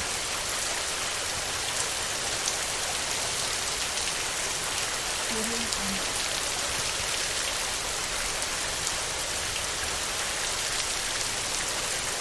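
Heavy rain falling steadily on a tin roof: a dense, even hiss of many drops striking metal.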